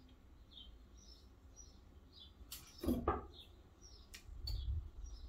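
A small bird chirping over and over, short high chirps about twice a second. About three seconds in, a louder brief rustle and knock as hands handle the fabric on the table.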